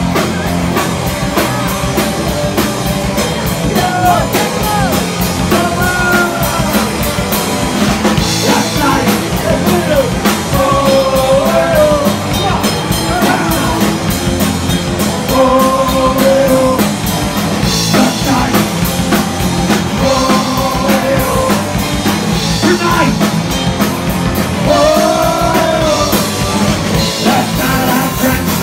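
Punk rock band playing live: electric guitar, bass guitar and drum kit, with a man singing lead vocals.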